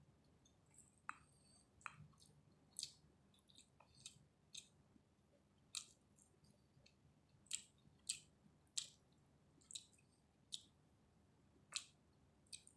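Close-up chewing of chicken biryani: wet mouth smacks and clicks, about a dozen, irregular and sharp.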